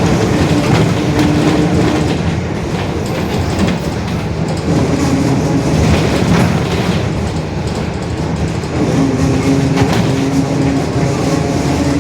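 Mercedes-Benz OF-1721 bus differential droning very loud as the bus drives, a pitched drone that swells and fades in stretches over the steady rumble and rattle of the moving bus.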